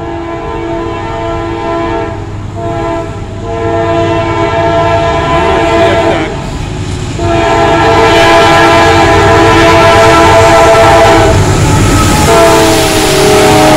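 CSX diesel freight locomotive's air horn sounding a series of long blasts with short breaks between them as the train approaches and passes. The horn's pitch drops as the locomotive goes by, about twelve seconds in. Under the horn, the engine and wheel rumble grows steadily louder.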